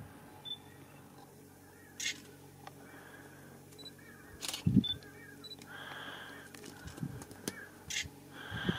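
Camera shutter clicking several times, a second or more apart, with a low thump about halfway through.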